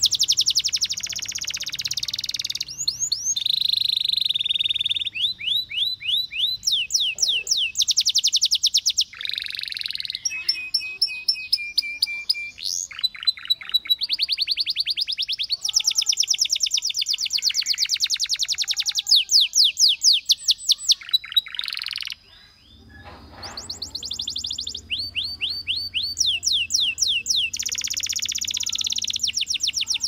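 Canary singing a long, loud song of rapid trills: fast runs of repeated sweeping notes and rolling phrases, broken by a brief pause about two-thirds of the way through.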